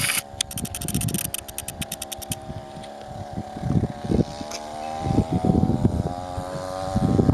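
Two-stroke chainsaw engine powering a homemade moped, running steadily, then rising in pitch and level near the end as it picks up speed. Rapid clicking over the first two seconds.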